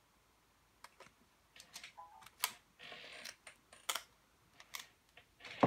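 Scattered key taps and clicks on a Fujitsu laptop keyboard, with a short rustle about three seconds in.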